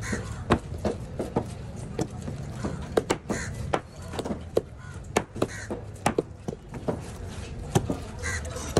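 Large fish knife cutting a black trevally on a wooden chopping board: irregular sharp knocks as the blade strikes the board between slicing strokes.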